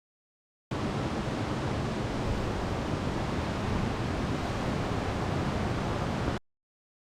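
Steady rushing roar of a roughly 60 m straight-drop waterfall, Amida Falls, heavy in the low end; it cuts in abruptly under a second in and cuts off abruptly near the end.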